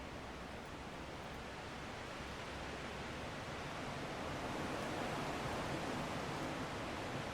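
Strong wind blowing steadily, with a gust swelling about five seconds in.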